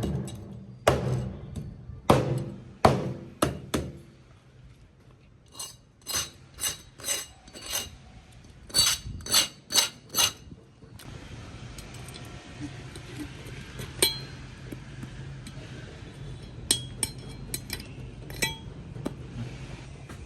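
Fish being prepared with a knife: a few heavy chops on a cutting board, then a run of sharp metallic clinks about two a second, then quieter scattered ticks over a low hum.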